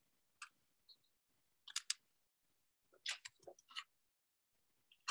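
Faint, scattered clicks of a laptop's keys and trackpad, in small clusters about two and three seconds in.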